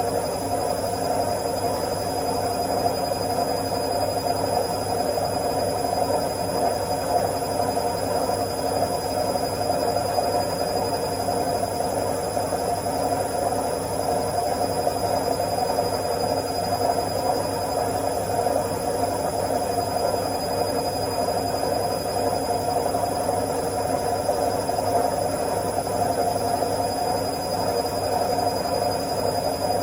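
Washing machine on its spin cycle: the drum spinning at a steady speed, giving an even whirring hum with a thin high whine above it.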